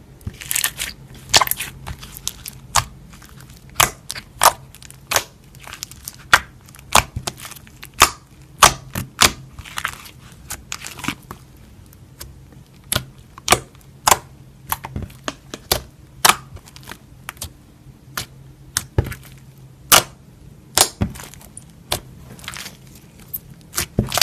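Slime being squeezed and pressed by hand, giving sharp irregular pops and crackles, roughly one or two a second, starting about half a second in.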